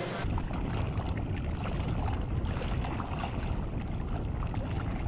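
Steady low rumble of wind on the microphone over open-sea ambience.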